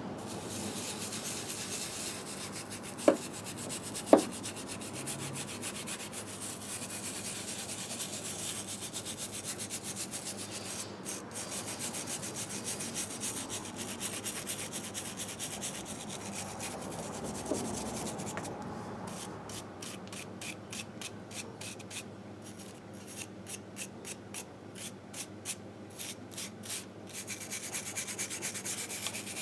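Scrubbing grime off the aluminium crankcase of a 1958 Harley-Davidson Sportster engine by hand: a steady scratchy rubbing that turns into a run of quick back-and-forth strokes in the second half. Two sharp clinks about three and four seconds in are the loudest sounds.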